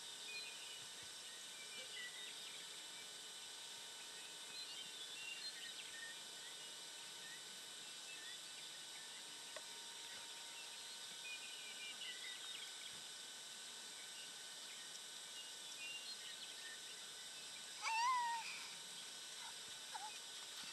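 Quiet rural pasture ambience: a steady faint hum with scattered faint bird chirps. About eighteen seconds in, one short, louder animal call rises and falls in pitch, with a fainter call shortly after.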